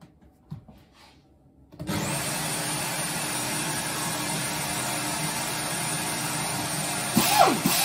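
Electric drill switched on about two seconds in, spinning up and then running steadily at speed, turning a steel piston pin held in a rubber hose while it is ground down from the inside. Near the end a short, louder scraping sound with falling pitch cuts in over the motor.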